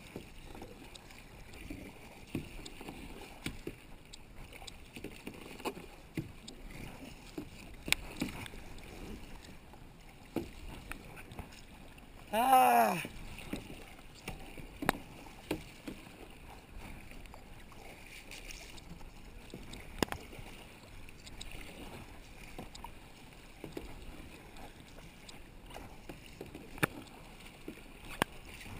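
Kayak paddling: the double-bladed paddle dipping and splashing, with scattered sharp knocks of the paddle against the plastic hull over lapping water. About halfway through, one brief loud call from a voice, falling in pitch.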